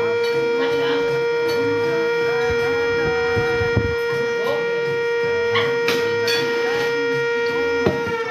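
Tornado warning siren sounding a steady, held tone at full speed. A few sharp clicks cut through it past the middle and near the end.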